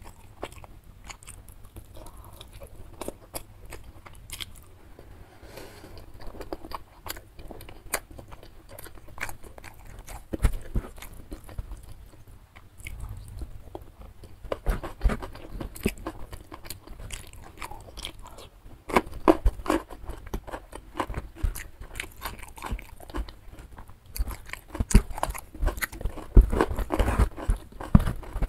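Close-miked chewing of a mouthful of rice and side dishes, with wet mouth clicks and crunchy bites. The chewing gets busier and louder in the second half.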